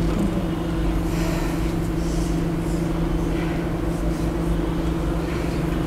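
Steady low hum and rumble of room background noise, with two constant droning tones, and a few faint soft rustles.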